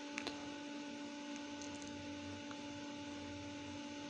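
Steady low electrical hum over a faint hiss, with two light knocks of a wooden spoon against the aluminium pressure cooker about a quarter second in, and a few fainter ticks of stirring later on.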